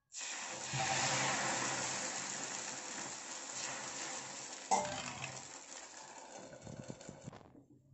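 Thin neer dosa rice batter sizzling on a hot tawa just after it is poured, loudest about a second in and slowly dying down. A single sharp metal clink comes about halfway through.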